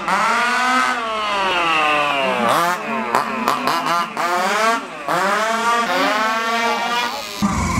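Radio-controlled model car engine revving, its pitch sweeping up and falling back several times as the car drives fast around the track. Near the end the sound changes to a steadier, lower hum.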